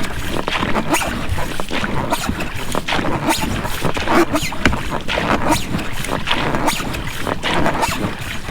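Oars working in the rubber rowlocks of an inflatable rowing boat, with the splash of the oar blades in the water on each stroke.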